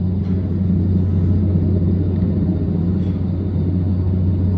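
Helicopter's rotor and engine running as it lifts off and climbs, heard from a distance as a steady low drone.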